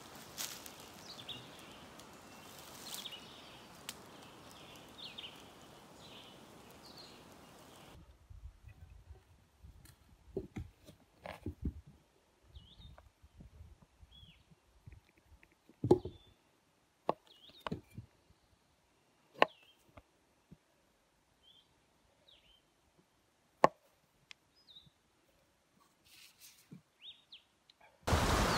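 Birds chirping over a steady outdoor background hush. About eight seconds in this gives way to near-quiet, broken by sharp clicks and knocks of a knife slicing through a block of cheese and striking the board beneath, with a few faint bird chirps between the strokes.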